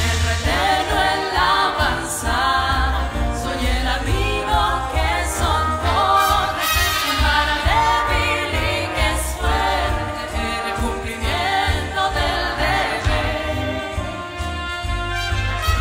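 Live big band music with singing voices over a pulsing bass line.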